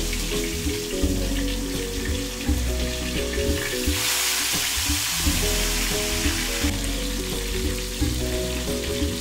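Permit fillets frying in hot oil in a pan, a steady sizzle that grows louder for a few seconds once a second piece is laid in, about four seconds in. Background music with low notes plays underneath.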